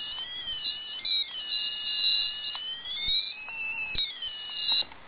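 High-pitched electronic tone whose pitch drifts slowly down and up like a theremin, with a click about four seconds in, cutting off sharply near the end.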